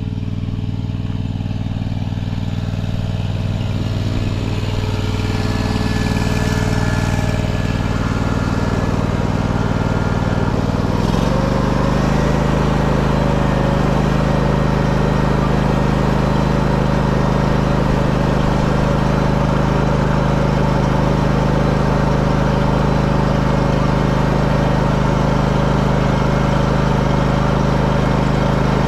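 Ditch Witch walk-behind trencher's small gasoline engine running steadily as it warms up just after a cold start on choke. About eleven seconds in, its note shifts slightly and then holds steady.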